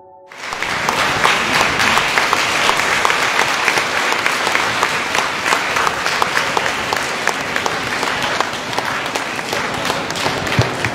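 Audience applauding, many hands clapping in a steady dense patter that starts about half a second in.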